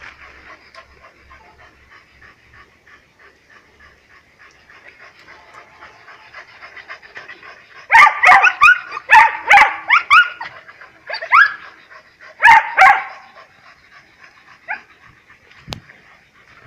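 A pack of dogs barking. The barks start suddenly about halfway through and come in quick, loud volleys for about five seconds, followed by a single late bark.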